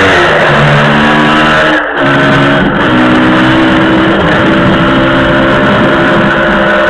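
Yamaha DT125's two-stroke single-cylinder engine running under way on the road, with a short break about two seconds in as the rider shifts up, then pulling on at lower revs.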